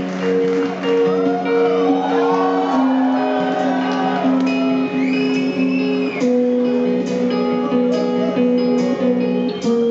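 Live rock band's guitar intro through a concert PA: a melody of long held notes over a steady sustained chord.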